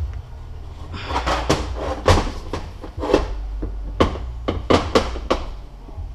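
Irregular series of about a dozen metal knocks and clunks from tools working a seal out of a MazdaSpeed 6 transfer case, starting about a second in and stopping a little before the end; the seal is not coming out this way.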